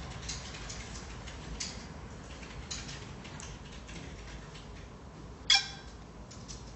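Faint clicks and taps of fingers handling a tablet and working its touchscreen, then one loud, sharp click with a brief ring about five and a half seconds in.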